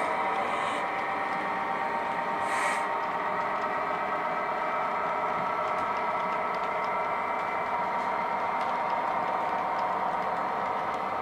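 Model railway train running on the layout: a steady whirring hum from the locomotive, with two short hisses, one right at the start and another about two and a half seconds in.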